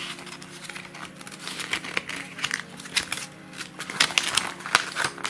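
Folded paper instruction leaflet being unfolded and handled, giving irregular crinkling and rustling, with a few sharper crinkles near the end.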